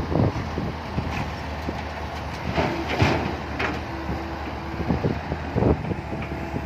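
Komatsu PC120-5 hydraulic excavator working: its diesel engine running steadily under load, with brief hydraulic whines and irregular clanks and knocks from the bucket and soil, loudest a little before halfway and again near the end.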